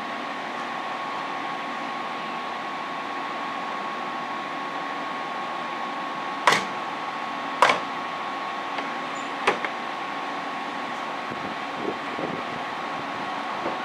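Steady whirring hum like a fan or ventilation unit, with a thin steady high tone running through it. Three sharp clicks or knocks come about halfway through, with two fainter ones near the end.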